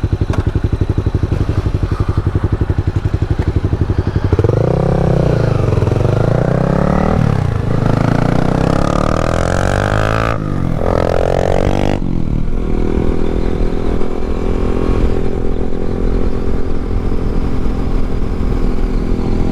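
Yamaha MT-07 parallel-twin motorcycle engine running under way. It runs steadily at first, then the revs rise and fall several times between about four and twelve seconds in, and then settle into a steady cruise.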